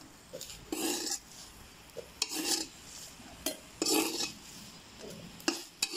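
Metal spoon scraping and stirring fresh red and green chillies around a dry metal pan as they roast, about five separate scraping strokes.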